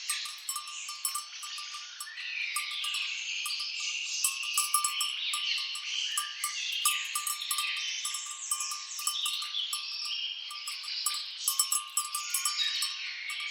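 A dense chorus of birds singing, with many overlapping chirps and rising and falling calls, over rapid high-pitched clicking of insects and a repeated pulsing note.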